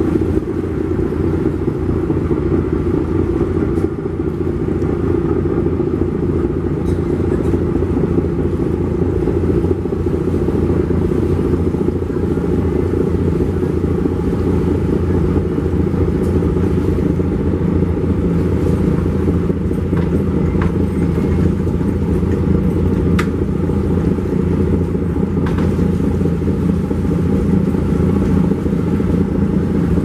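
MV Surovi-9's twin six-cylinder Daihatsu marine diesel engines running steadily with a rhythmic beat while the launch is under way.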